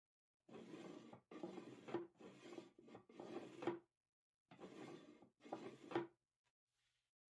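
Wooden sliding lid of a gift box pushed back and forth in its grooves: a dry wood-on-wood rub, about six strokes, several ending in a light knock.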